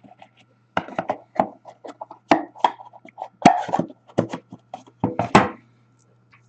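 A quick, irregular run of clicks, taps and knocks from hockey cards and their packaging being handled on a table, stopping about five and a half seconds in.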